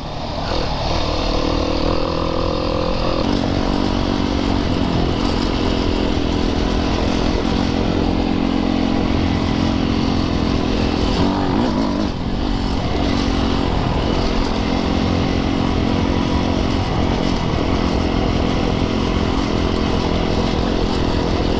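Yamaha YZ450FX's single-cylinder four-stroke dirt-bike engine running under way on a trail. The engine note drops about three seconds in, dips briefly about halfway through, then picks back up.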